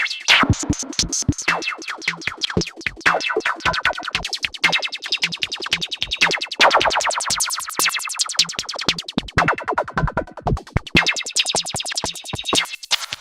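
Electro drum-machine beat and fast synth sequence played through an Erica Synths AcidBox III, with the filter sweeping the tone up and down over a few seconds at a time. Rapid repeated notes run over a steady kick.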